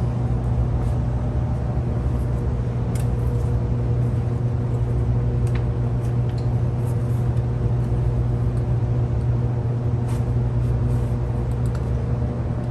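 Steady low mechanical drone at an even level, with a few faint clicks and taps on top.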